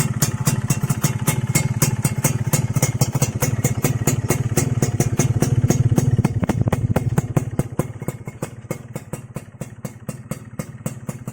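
Motorcycle engine idling steadily through a YY Pang aftermarket exhaust, with a fast even run of firing pulses. It gets a little quieter over the last few seconds.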